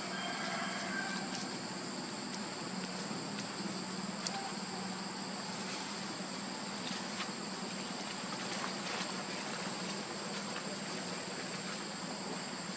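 Steady forest ambience of insects droning at an even high pitch, over a low steady hum, with occasional faint clicks and rustles of dry leaves.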